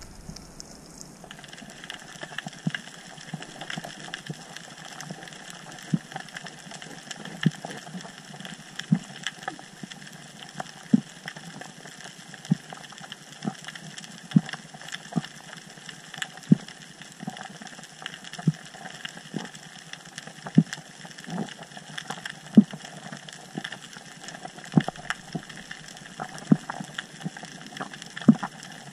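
Underwater reef ambience picked up through an action camera's waterproof housing: a steady hiss with constant faint crackling and a louder sharp click about once a second.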